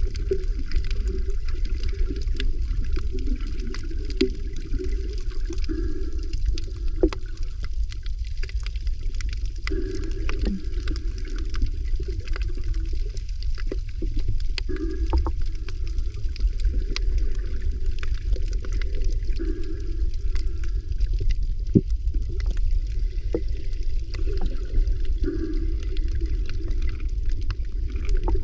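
Moving sea water: a steady low rumble and wash, with scattered sharp clicks and crackles throughout.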